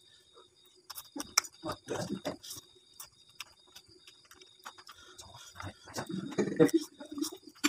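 Close-up eating sounds: chewing boiled mustard greens and instant fried noodles, with a few sharp clicks about a second in and the loudest, busiest chewing about six to seven seconds in. A faint high ticking repeats a few times a second underneath.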